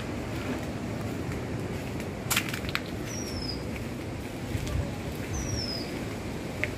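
Outdoor ambience with a steady low rumble and a few sharp clicks, the loudest a little over two seconds in, while a bird calls twice with a short falling whistle.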